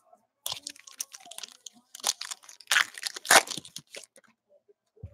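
Foil trading-card pack wrapper being torn open and crinkled by hand: a quick run of crinkles and tearing rustles, loudest about three seconds in.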